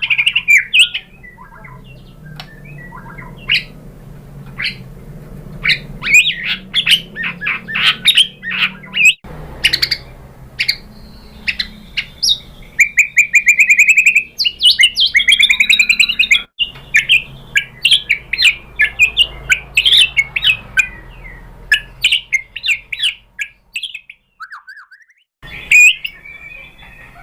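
White-rumped shama (murai batu) singing: fast runs of varied whistles, chirps and trills, with short pauses between phrases. The song breaks off abruptly a few times.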